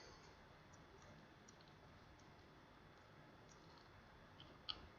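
Near silence with a few faint, light clicks, the loudest a quick pair near the end: the tablet's screen and plastic parts being handled as the LCD is lifted out.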